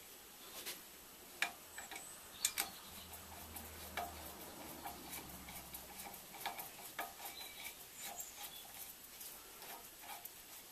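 Irregular light metallic clicks and ticks as a welding turntable and its clamp are handled and adjusted, with a faint low hum for a few seconds in the middle.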